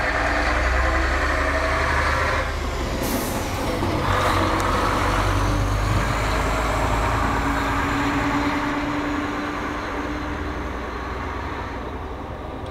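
Engine of a large road vehicle running with a low rumble, with a brief hiss about three seconds in.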